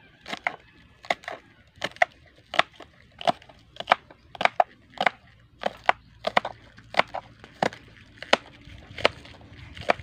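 Kitchen knife slicing green onions on a wooden cutting board: the blade knocks on the wood in a steady rhythm, about two cuts a second, some in quick pairs.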